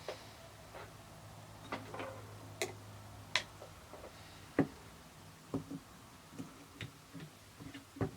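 Irregular small clicks and taps of the plastic odometer gears and cluster parts of a Porsche 968 instrument cluster being handled and fitted, with a faint low hum through about the first half.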